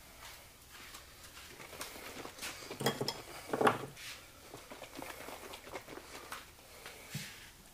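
Handling noises from a plastic dye bottle being opened and worked over a small stainless steel saucepan: scattered clicks, taps and rustles, with two louder knocks less than a second apart near the middle.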